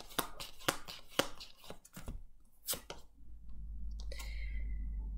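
Hand-shuffled deck of oracle cards: a quick, irregular run of sharp card clicks and slaps for the first three seconds. A low rumble builds from about three seconds in.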